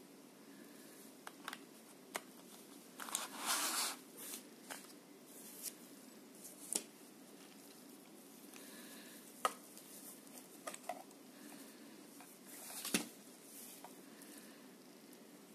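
Plastic watch-repair magnifier headset being handled: scattered light clicks and taps of its plastic parts, with two brief rustles, about three seconds in and near the end.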